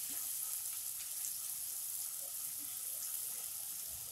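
Finely chopped onions sizzling in hot oil in a kadai: a steady, high hiss with a few faint crackles as the onions are fried to soften.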